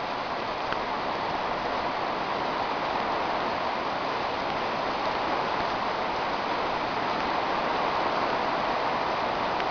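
Heavy tropical-storm rain pouring steadily, an even wash of noise with no let-up.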